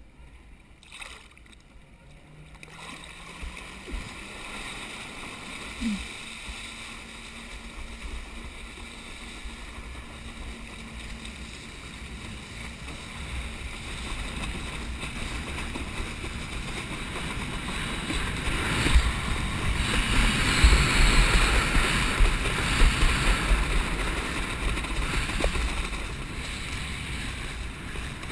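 A jet ski engine hums low and rises briefly in pitch as it takes up the tow, under a steady rush of water and splashing along the towed board and wind on the microphone. The rushing grows louder and is heaviest a little past the middle as the board crosses whitewater, then eases near the end.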